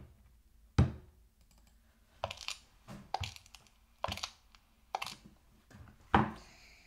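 A string of separate clicks and knocks, about one a second, from plastic dolls and toy pieces being handled and set down. The loudest knocks come about a second in and again near the end.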